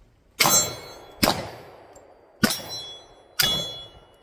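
Pistol shots about once a second at steel targets, each crack followed by the ring of a hit steel plate. There are four shots in a run of a Steel Challenge drill.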